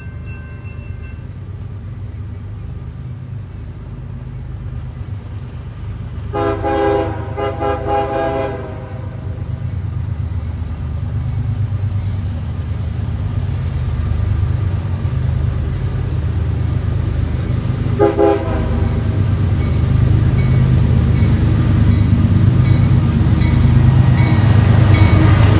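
Approaching train with a locomotive's low engine rumble growing steadily louder. The horn sounds a blast of about two and a half seconds some six seconds in, then a short toot near eighteen seconds.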